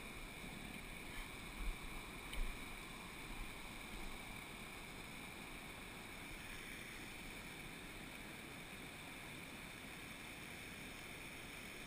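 Steady rush of water spilling over small rock cascades into a mountain stream pool, with a few low thumps on the microphone about two seconds in.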